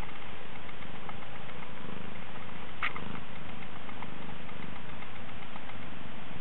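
A cat purring steadily in a low, even rumble, with a few faint clicks from it shifting, one about halfway through.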